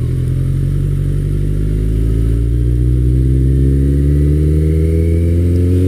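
Motorcycle engine pulling under steady acceleration, its pitch climbing slowly and evenly as the revs rise.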